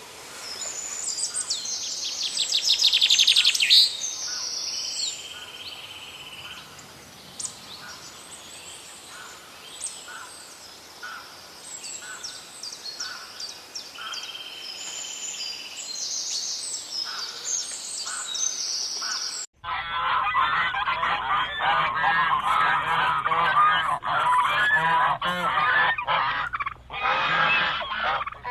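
Small birds singing, a mix of short high chirps and trills. After an abrupt cut about two-thirds of the way in, a large flock of birds calls all at once in a dense, continuous clamour.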